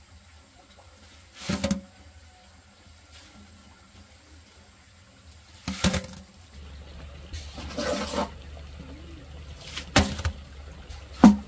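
Water splashing in about five short, separate bursts, the sharpest near the end, over a low steady rumble that sets in about halfway through.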